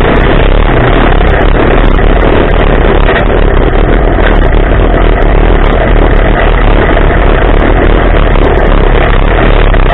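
Polaris RZR side-by-side engine running hard at speed on a dirt trail, heard loud and steady from on board the vehicle, mixed with wind and tyre noise.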